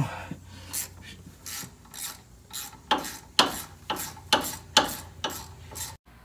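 Hand ratchet with a 3/8-inch Allen-bit socket backing out a rusty brake caliper bolt: a rasping run of ratchet clicks on each return swing, about two strokes a second.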